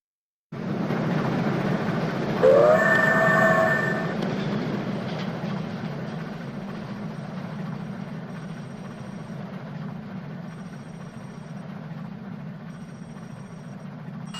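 Train passing with a rumble of wheels on the rails. About two and a half seconds in, it sounds one horn blast lasting about a second and a half, which slides up in pitch at the start and is the loudest sound. The rumble then fades slowly.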